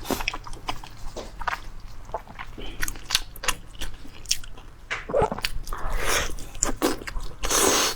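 Close-up eating of pork knuckle: biting and chewing, with many short wet clicks and a few longer smacking or sucking bursts.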